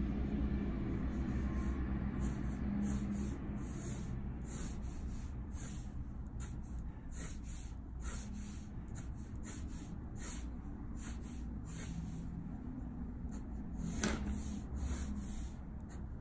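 Faber-Castell Polychromos colored pencil scratching on bristol paper in short, irregular strokes, about one or two a second, one a little sharper near the end. A steady low hum runs underneath.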